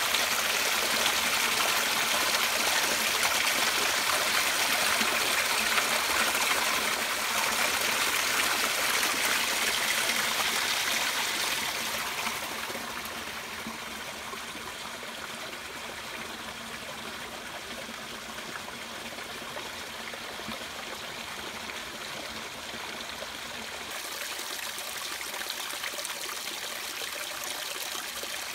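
A small waterfall splashing over rocks into a shallow forest stream. The water noise drops to a quieter trickle a little under halfway through and rises a little again near the end.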